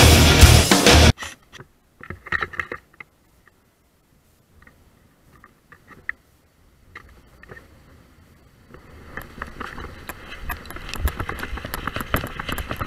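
Loud rock music cuts off suddenly about a second in. After that come scattered faint clicks and rustles. From about nine seconds in, a rising rush of scraping and rustling with many sharp clicks builds as the camera wearer runs through brush and grass, gear jostling.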